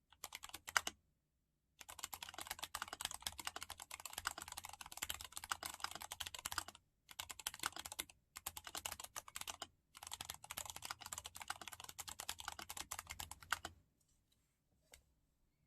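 Mechanical keyboard with Gateron Ink Yellow linear switches, lubed with Krytox 105, being typed on quickly in runs of rapid keystrokes with short pauses between them. The typing stops near the end, followed by one faint key click.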